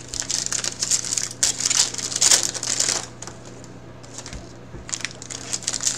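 Foil trading-card pack wrappers crinkling and cards being handled, in rustling bursts with a quieter spell of about two seconds in the middle, over a steady low hum.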